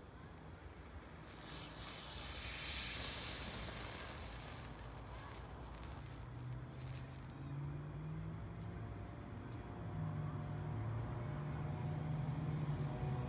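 Thermite of black iron oxide and aluminum powder igniting and burning: a loud rushing hiss flares about a second in and fades over a few seconds. From about six seconds in, a low hum with a wavering pitch sounds under it.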